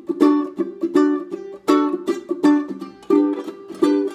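Ukulele fingerpicked in a steady, repeating pattern, each plucked note ringing on, with stronger strokes about every two-thirds of a second and lighter notes between them.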